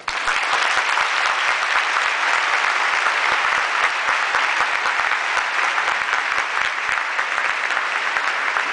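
Large audience applauding, breaking out all at once and then holding steady as dense, continuous clapping.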